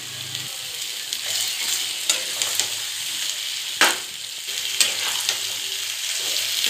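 Cabbage and potato sizzling in a kadai while a steel spatula stirs and scrapes through them, mixing in freshly added cumin paste. A few sharp knocks of the spatula against the pan come through, the loudest about four seconds in.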